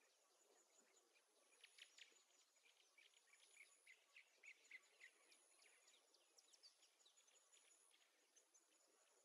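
Near silence: a faint hiss, with faint, quick birdsong chirps through the middle few seconds.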